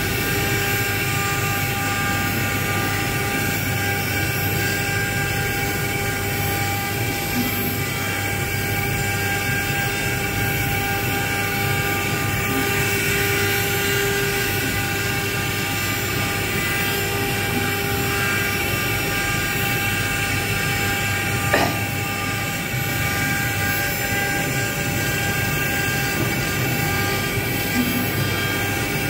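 CNC router spindle motor running steadily with a fine engraving bit carving a relief into wood, giving a constant whine of several tones over the cutting noise. There is one brief sharp tick about three-quarters of the way through.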